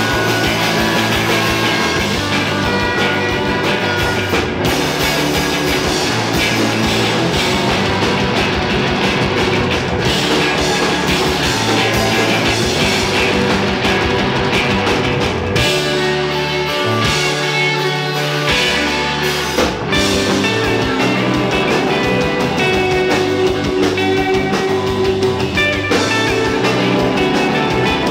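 Live rock band playing loud, with distorted electric guitars, bass guitar and a drum kit. About halfway through, the drums drop out for about four seconds, leaving held bass and guitar notes, and then the full band comes back in.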